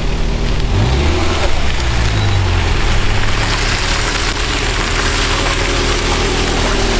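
FSO Polonez car driving up a gravel track and passing close by, its engine note rising about a second in, over a steady rushing noise.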